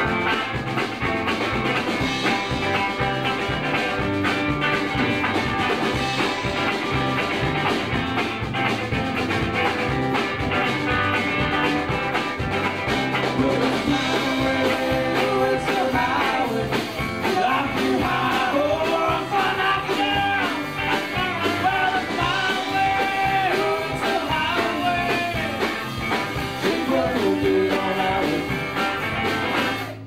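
Live rock band with electric guitars and drums playing an instrumental stretch of a song, with a wavering, pitch-bending lead line through the second half.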